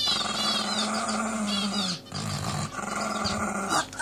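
Small dog growling low and steadily with a toy held in its mouth, guarding it from its owner. It growls in two long stretches with a brief break about halfway through.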